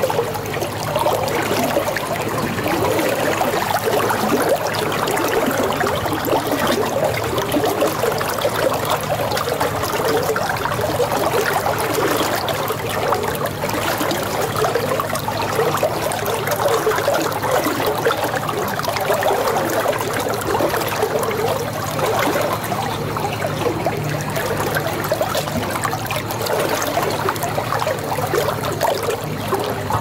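Running water trickling and burbling steadily, with a low steady hum underneath.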